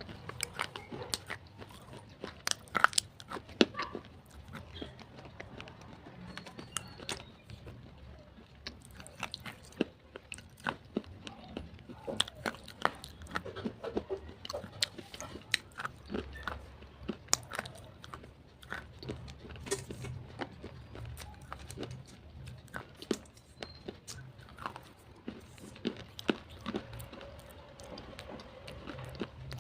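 Slate pencils being bitten and chewed close to the microphone: a dense run of sharp, irregular crunches and cracks.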